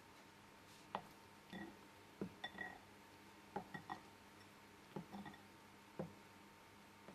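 Silicone spatula knocking and scraping against a glass mixing bowl while folding meringue into coffee cake batter: about a dozen faint, irregular clinks, some with a brief glassy ring.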